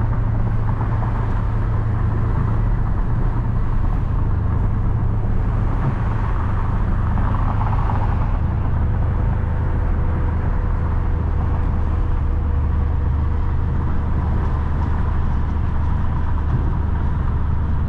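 Chrysler 300C's 5.7 L HEMI V8 running steadily at low speed, a constant low drone heard from inside the car.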